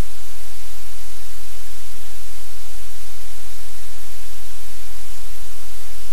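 Loud, steady static hiss spread evenly from low to high pitch, with a constant low hum underneath.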